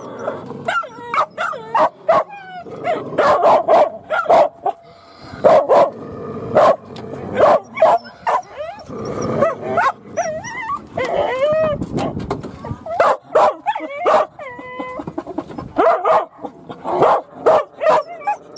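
Hunting dogs barking, yipping and whining, in many short calls one after another.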